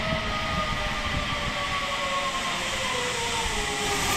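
Zip line trolley pulleys running along the steel cable as a rider travels away down the line: a steady whirring hum whose pitch falls slowly.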